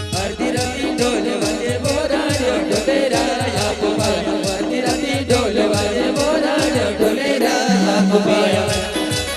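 Adivasi brass-band-style timli dance music playing instrumentally: a steady, driving drum beat of about two strokes a second under a repeating melody line.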